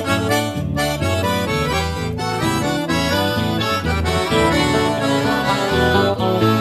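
Accordion playing an instrumental break between sung verses of a gaúcho folk song, a busy melody over changing bass notes.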